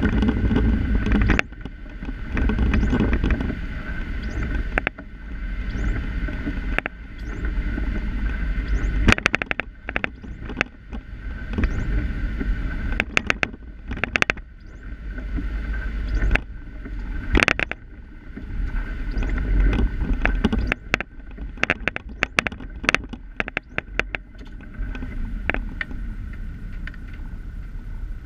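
Car driving on a rain-wet road, heard from inside the cabin: low engine and tyre rumble with a watery tyre hiss. Frequent sharp, irregular rattling clicks run over it.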